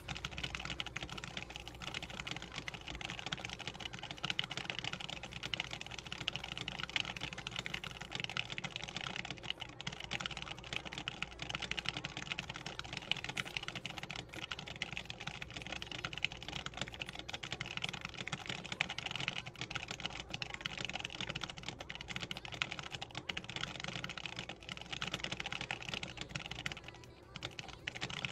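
Very fast continuous typing on a Das Keyboard X50Q mechanical keyboard with Gamma Zulu switches: a dense, unbroken stream of key clicks at speed-test pace of about 177 words per minute. The stream pauses briefly about a second before the end.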